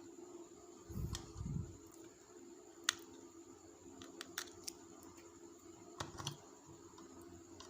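Small clicks and taps from hand tools and an LED bulb's circuit board being handled during soldering work: two low bumps about a second in, then scattered sharp ticks.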